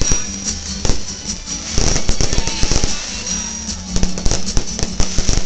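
Fireworks display: a rapid string of bangs and crackles from bursting shells overhead, densest about two seconds in and again near the end.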